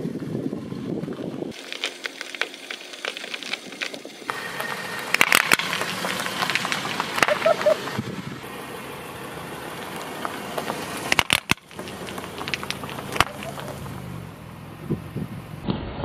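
Car tyres rolling slowly over gravelly asphalt with a low rumble, followed by crackling and crinkling noise with many sharp clicks and a few louder ticks, the sound of the grit and plastic sheeting being set up under the wheel.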